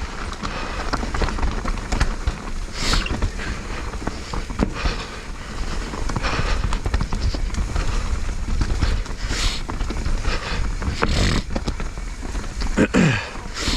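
Mountain bike descending a rough dirt trail: tyres over dirt and roots, with frequent knocks and rattles of the bike, under a constant low wind rumble on the GoPro's microphone.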